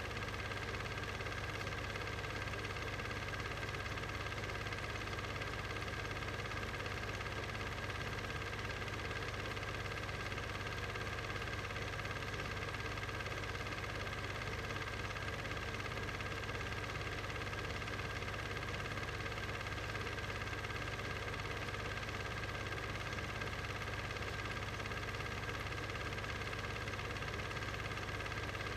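A steady, unchanging mechanical hum with several fixed tones over a background hiss.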